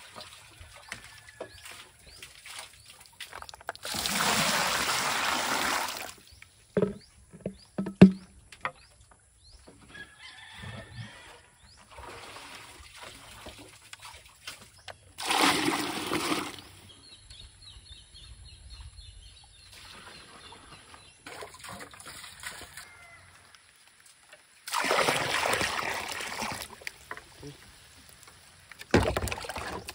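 Well water poured from a bucket into a plastic basin: three splashing pours, each about two seconds long and about ten seconds apart, with quieter sloshing and a few sharp knocks in between as the bucket is lowered and drawn up from the well.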